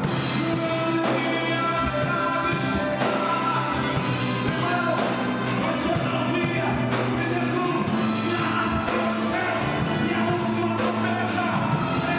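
A worship band playing, with singing.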